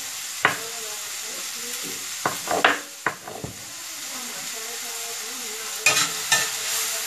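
Chef's knife chopping a pepper on a wooden cutting board: a few sharp knocks, one about half a second in, a cluster around two and a half seconds and two more near six seconds, over a steady hiss.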